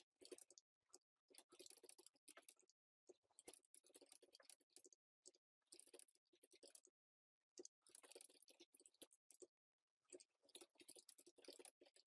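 Faint computer keyboard typing in quick runs of keystrokes, broken by short pauses.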